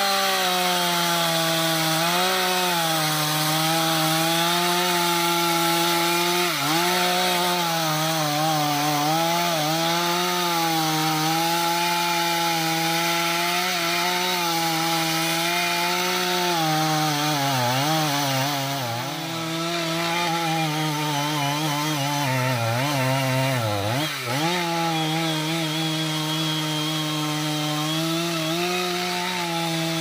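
Chainsaw at full throttle cutting through the trunk of an anjili (wild jack) tree. The engine note is high and steady, and it sags in pitch a few times in the second half as the saw is loaded in the cut.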